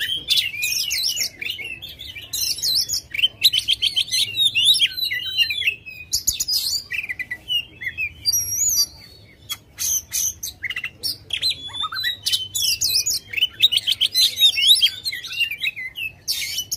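Oriental magpie-robin (kacer) singing hard and without a break: a fast, varied run of whistles, rapid trills and harsh chattering notes, with brief lulls about six and nine seconds in.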